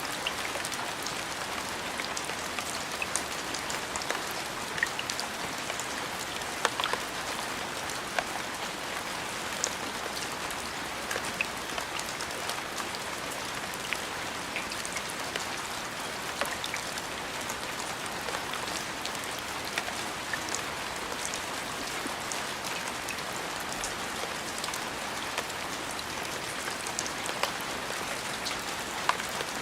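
Steady rain: an even hiss of falling rain, with scattered louder drops ticking sharply on a surface.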